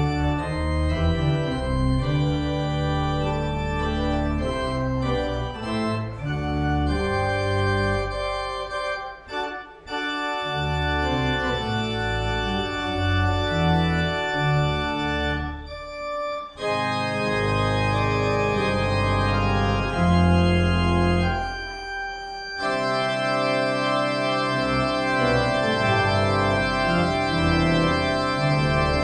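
Organ music: slow, sustained chords moving from one to the next, with short breaks between phrases about 9, 16 and 22 seconds in.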